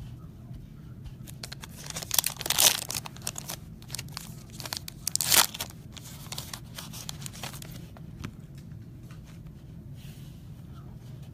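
Wrapping on a sealed trading-card box and pack being torn open and crinkled by hand: bursts of crackling and tearing, the loudest a little over two seconds in and again about five seconds in, then lighter crinkles.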